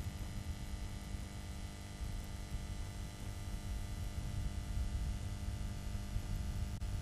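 Steady electrical hum and static from an open audio line, several steady tones over a low rumbling noise.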